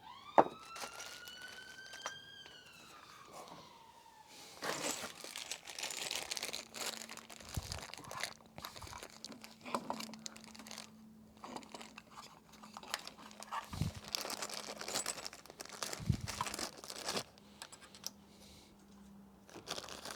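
Hands working with bike parts and packaging: rustling, crinkling and scattered clicks and knocks. Over the first four seconds a single whining tone rises and then falls away, and a steady low hum runs from about six seconds in until near the end.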